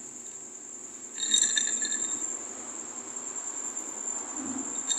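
Crickets trilling steadily at one high pitch, with a brief higher tone about a second in.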